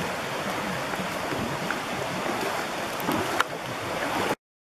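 Fast, shallow river rushing over a gravel and cobble bed, a steady wash of water noise, with rain falling. A couple of light clicks come about three seconds in, and the sound cuts off suddenly just before the end.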